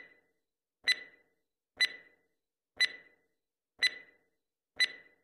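Countdown-timer clock-tick sound effect: a single sharp tick once a second, each with a short ringing tail, about six ticks.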